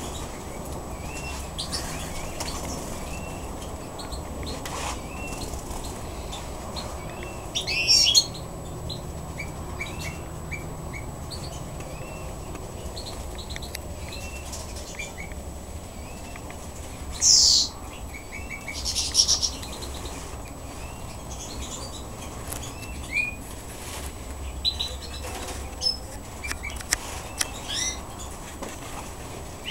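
Eurasian bullfinches in a cage giving many short, soft piping call notes, over a steady low hum. A few louder sudden bursts stand out, about eight seconds in and again near the middle.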